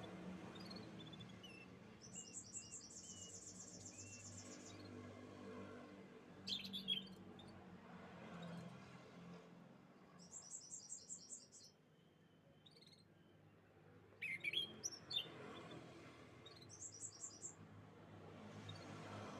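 Canaries singing: three spells of fast, high trills, with clusters of short sharp chirps between them, over a faint low steady hum.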